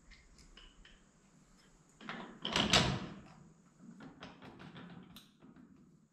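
Metal parts of a core drill rig being handled and fitted together by hand: a few light clicks, then a louder clatter about two seconds in, followed by softer knocks and clinks.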